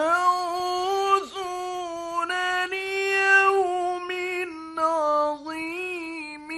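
A male Quran reciter's solo voice in melodic mujawwad style, drawing out a long, ornamented passage. The pitch steps up at the start and then wavers through melismatic turns, with a few short breaks for breath. It is an old 1960s Egyptian radio recording.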